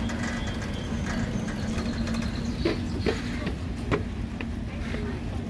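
Big Chute Marine Railway's cable-hauled boat cradle rolling down its inclined twin tracks: a steady low mechanical hum and rumble, with a few short clanks in the second half.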